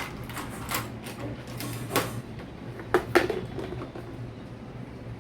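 Handling noise of small plastic toy parts: a few clicks and taps as pieces are picked up and set down, the loudest about two and three seconds in, over a low steady hum.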